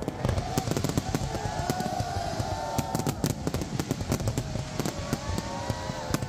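Large fireworks display in full barrage: a dense, irregular stream of bangs and crackles from many shells bursting in quick succession.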